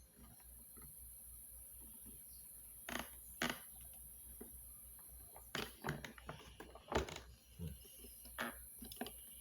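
Scattered clicks and knocks of hard plastic parts and a hand tool being handled while the plastic housing of a vacuum cleaner is pried and unscrewed apart, several sharp clicks in the second half.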